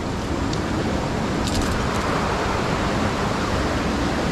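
Steady rushing of river water flowing over and around rocks, with a few brief faint ticks about a second and a half in.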